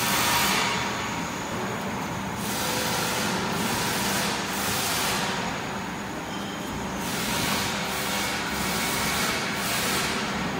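Hydraulic box and pan brake (sheet metal folder) running: a steady hum under a string of rubbing, hissing swishes, each a second or two long, as sheet metal and machine parts move.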